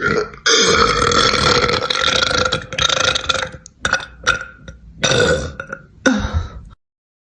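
A woman burping loudly: one long burp lasting about three seconds, followed by several shorter burps.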